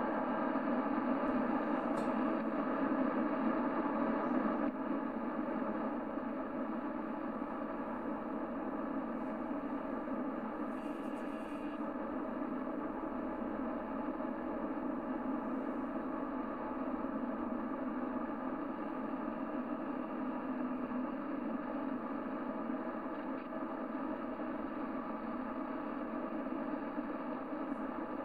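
Lafayette LMS-40 AM/SSB CB radio's receiver putting out steady static through its speaker with no station on the channel, with faint steady tones in the hiss. The level drops slightly about five seconds in.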